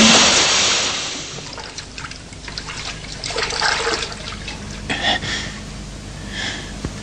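A loud splash into harbour water, fading over the first second, followed by softer trickling and splashing of disturbed water.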